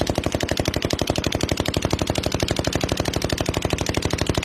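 Automatic gunfire: a machine gun firing one long unbroken burst at roughly a dozen rounds a second, in a night-time armed clash with tracer fire.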